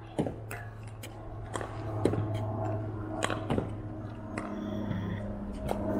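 Pickleball paddles hitting a plastic ball: a series of sharp, irregular pocks over a steady low hum.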